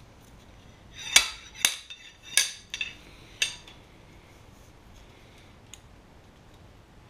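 Slide hammer's sliding weight slammed against its stop five times, with sharp metallic clanks that ring briefly, jerking a drilled oil gallery plug out of a cast-iron Ford FE V8 engine block.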